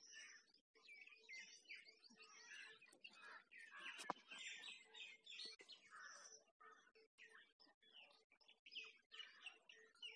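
Faint chorus of small birds chirping and twittering, many short calls overlapping, with one sharp click about four seconds in.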